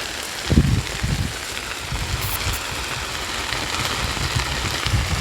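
Cattail marsh vegetation burning with a steady crackle, with a few low thumps about half a second and a second in.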